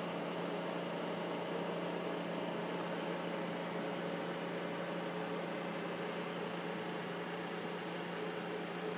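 Steady hum and hiss of laboratory machinery from an automated assembly gantry and its equipment running, with a constant low drone and a few fainter steady tones.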